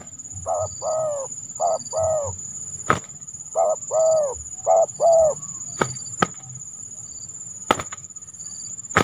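Spotted dove cooing: four two-note phrases, each a short coo followed by a longer arched one, within the first five and a half seconds. Several sharp clicks follow through the rest.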